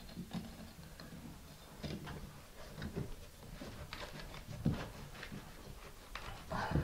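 Faint clicks and soft knocks of a mosaic tile sheet being pressed and wiggled into place by hand, the small tiles tapping against each other. One sharper knock comes about two-thirds of the way in.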